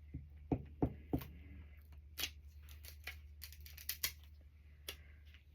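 Scissors snipping through thin magazine paper: a run of short, irregular cuts, bunched together a little past the middle.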